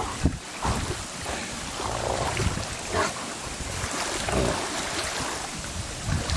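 Two dogs play-wrestling, with short irregular scuffles and growls over steady wind noise on the microphone.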